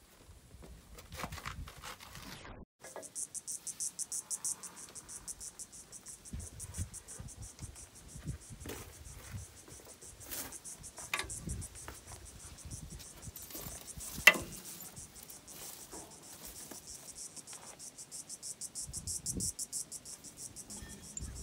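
An insect chorus in the bush, a high buzz pulsing rapidly and evenly, starts about three seconds in and runs on. Over it come scattered clanks, clicks and low knocks of hand-tool work on the dozer's hydraulic hose fittings. One sharp metallic knock about fourteen seconds in is the loudest sound.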